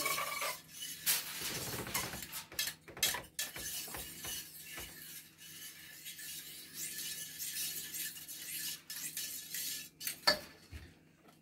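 Metal whisk stirring thickening pudding custard in a stainless steel saucepan, scraping and clinking against the pot's sides and bottom, with a few sharp knocks; the loudest knock comes about ten seconds in.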